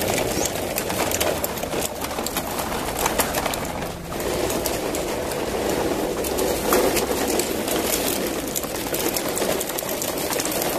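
Plastic toy trucks rolling over rough concrete, their wheels and loaded bodies giving a steady rolling rattle with many small clicks.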